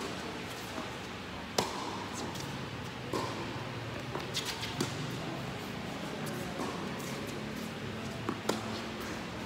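Tennis rally on a hard court: several sharp pops of rackets striking the ball and the ball bouncing, the loudest about one and a half seconds in and a close pair near the end, over a steady low hum.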